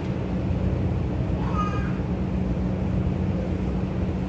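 Steady low rumble of room noise in a quiet prayer hall, with a faint short rising vocal sound about a second and a half in.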